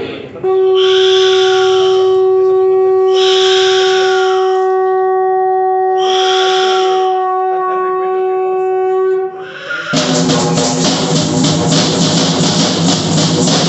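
Conch-shell trumpet blown in one long, steady note for about nine seconds, with three short bursts of hiss over it. About ten seconds in it stops and music with strummed strings and drum starts.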